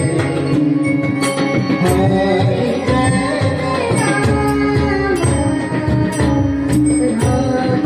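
Marathi abhang devotional music: pakhawaj and tabla drumming in a quick, steady rhythm under held harmonium notes, with voices singing.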